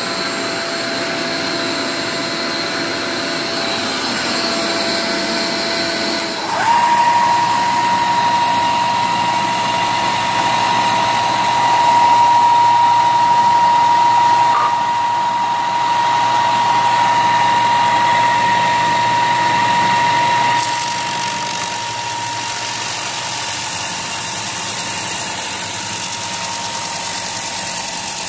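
Electric power sander running steadily on the end grain of a hardwood cutting board, with a constant motor whine over the hiss of abrasive on wood. The whine steps up in pitch about a quarter of the way through, and the sound is loudest in the middle stretch.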